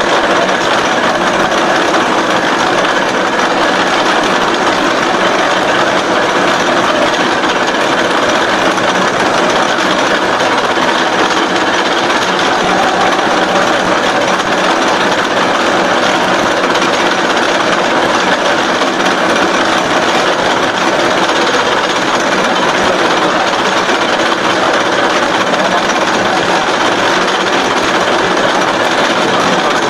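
SXA55 CNC H-beam bevelling machine running, a loud, steady mechanical noise with no pauses.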